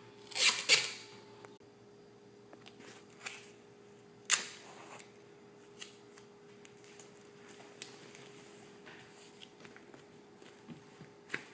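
Duct tape being pulled off the roll in a couple of short rips, then scattered clicks and handling noises as the strip is laid down, including one sharp click about four seconds in. A faint steady hum lies under it all.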